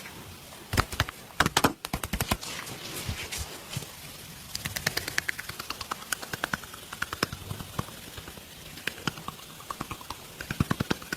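Hands slapping and tapping on bare skin in a percussive massage: a loud cluster of slaps near the start, then fast, even taps at about four to five a second.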